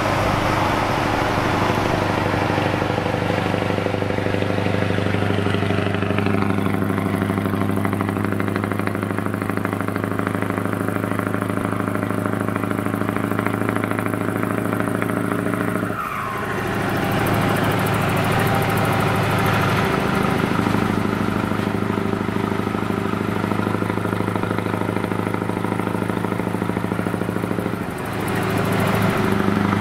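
Scania V8 truck engine with an open-pipe exhaust running at steady cruising revs, heard from inside a car driving alongside the truck. The note briefly drops in pitch and comes back twice, about halfway through and near the end.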